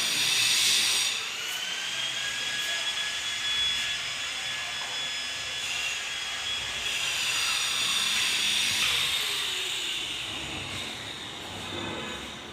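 A small electric power tool runs steadily with a high-pitched whine, its pitch shifting slightly, and eases off near the end.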